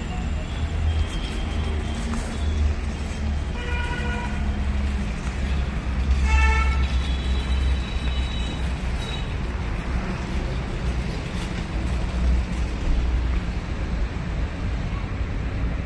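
Busy street traffic with vehicle horns honking: a short horn blast about three and a half seconds in and another about six seconds in, over a steady low rumble of traffic.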